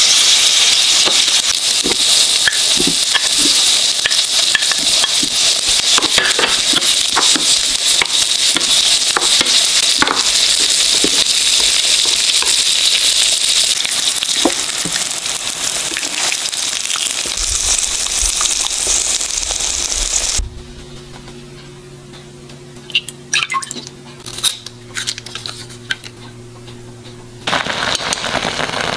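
Abalone and king oyster mushroom slices sizzling as they fry in butter in a frying pan, with light clicks of a spoon and chopsticks turning them. About two-thirds through it cuts to a much quieter stretch with a steady low hum and a few clicks, then water boiling in a glass pot near the end.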